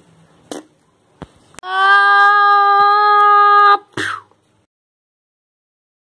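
A few sharp clicks, then a single steady, flat electronic tone held for about two seconds and cut off abruptly with a click, followed by dead silence.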